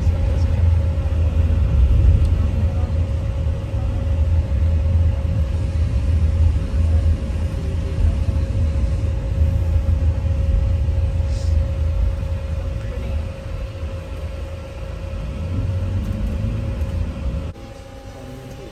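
Low engine and road rumble heard from inside a moving vehicle, with a steady hum over it. The rumble drops off sharply near the end.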